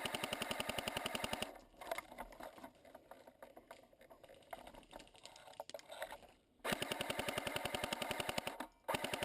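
Airsoft rifle firing on full auto in rapid, evenly spaced bursts. The first burst stops about a second and a half in, scattered quieter clicks follow, and a second burst of about two seconds comes near the end.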